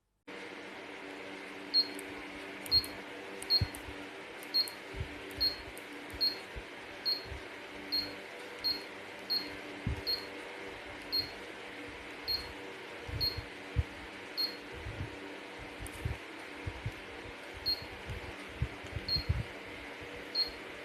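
Ultrasonic aroma diffuser humidifier running: a steady hum from its small fan with a hiss of mist, and soft pops of water about once or twice a second.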